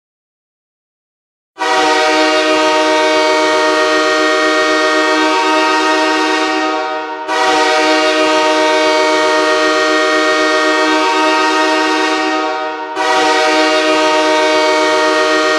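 Los Angeles Kings goal horn, a train-style chord horn, signalling a goal. It starts about a second and a half in and blows three long blasts of five to six seconds each, back to back.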